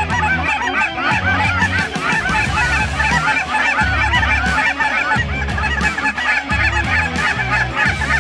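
A large flock of cackling geese calling in flight, a dense chorus of short, high cackles and yelps, with music playing low underneath.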